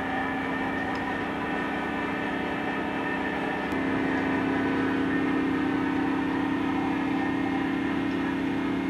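Diesel engine of the Eastleigh rail breakdown crane running steadily under load, a constant low hum with a few steady tones above it; it grows louder a little under four seconds in.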